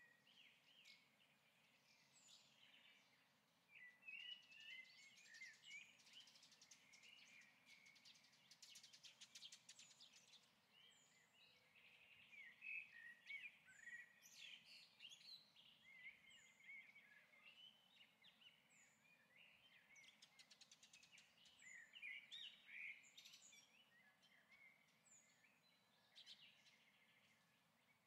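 Faint birdsong: several birds chirping and trilling, with a short high note repeating every second or two.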